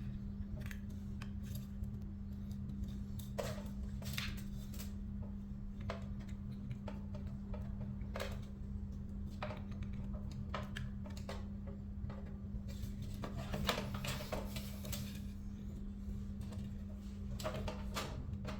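Scattered clicks and light knocks of small hard parts being handled, over a steady low hum.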